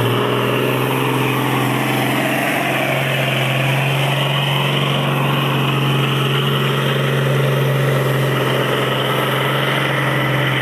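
Turbocharged 12-litre straight-six diesel of a tractor-pull vehicle built from a Renault 340 truck unit, running hard under full load as it drags the weight-transfer sledge down the track. The engine note holds steady, rising slightly about three seconds in.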